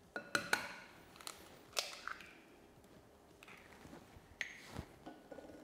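A hen's egg tapped against the rim of a glass mixing bowl and cracked open: several sharp taps with a short glassy ring in the first two seconds, then a couple more clicks about four and a half seconds in as the shell is pulled apart.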